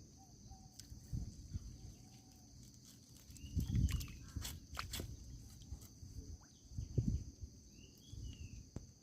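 Insects droning steadily at a high pitch, with a few dull low thumps and sharp clicks and some short bird chirps.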